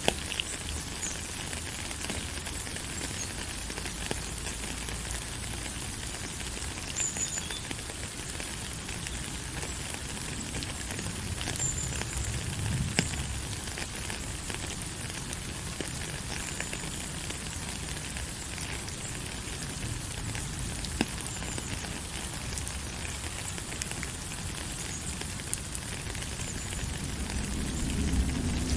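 Steady rain: an even hiss with scattered faint ticks of drops, and a low rumble that swells near the end.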